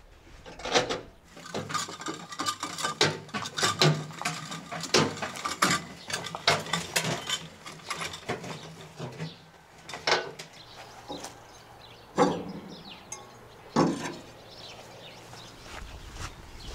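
A steel smoker box with a chimney, rolling on caster wheels as it is pulled over grass. Its metal body rattles and clanks over the bumps, with a few single louder clanks in the second half.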